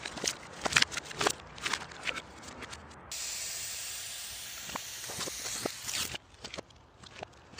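Balloons bouncing down concrete steps: a quick run of knocks and taps, then about three seconds in a steady high hiss that cuts off suddenly, followed by a few light taps.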